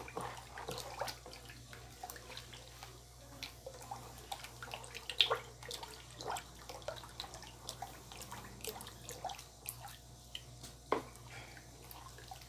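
Ladle stirring a thick homemade soap mixture in a plastic basin, with irregular wet sloshes and clicks as it scrapes and knocks the basin.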